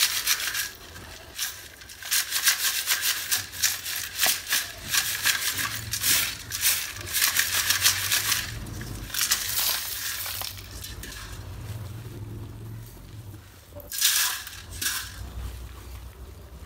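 Hard roasted multani mitti (fuller's earth) chips rattling and scraping in a steel mesh sieve as it is shaken, a dense clatter of many small clicks in bursts. It eases off after about ten seconds, with one more short burst of rattling near the end.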